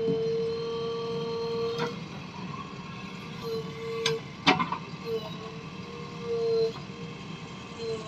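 JCB 3DX backhoe loader's diesel engine running under work, with a steady whine that cuts in and out as the arm moves. A few sharp clanks come in the middle, the loudest about four and a half seconds in.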